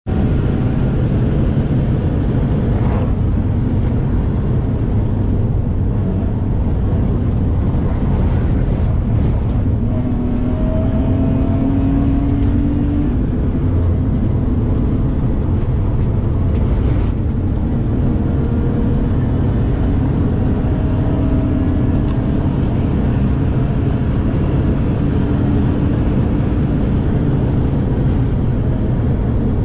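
BMW E36's 3.0-litre stroker straight-six (S50B30 crank and pistons in an M50 iron block, X-pipe exhaust) running hard under load inside the cabin, its pitch rising as it pulls through the gears a couple of times. It sounds healthy in the driver's judgment.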